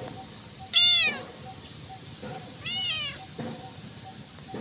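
Ginger tabby cat meowing twice, high-pitched: a loud meow about a second in and a softer one near the three-second mark.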